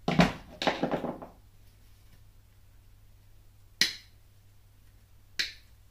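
A sudden loud burst of sound with a short rattle after it, then two sharp clicks about a second and a half apart.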